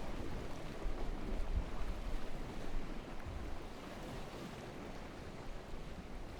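Small sea waves washing gently against a rocky shore, a steady watery hiss, with wind buffeting the microphone as an uneven low rumble.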